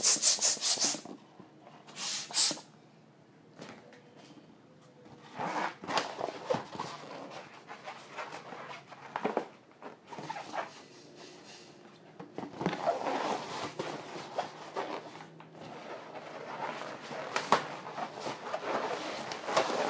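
Inflated 6-inch latex balloons being twisted and pressed together by hand: rubber rubbing and squeaking, loudest in two short bursts near the start and about two seconds in, then irregular rubbing and handling noise with scattered clicks.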